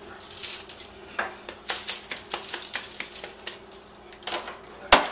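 Disposable aluminium foil roasting pan crinkling and rattling in quick irregular clicks as a beef rib roast is handled over it, then one sharp thump near the end as the roast is set down in the pan.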